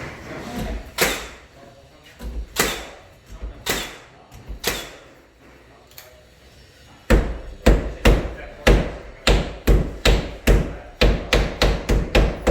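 Cordless narrow crown stapler (Milwaukee M18 FUEL, 18-gauge) firing staples through metal drywall corner bead into timber, each shot a sharp snap with a thump. A few single shots come first, then from about halfway a quick run of about a dozen at roughly two a second.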